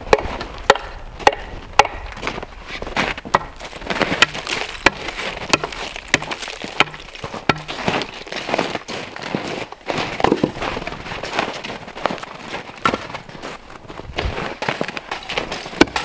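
Firewood being split with a heavy axe on a chopping block and the split pieces handled: a run of sharp wooden knocks and cracks, irregularly spaced.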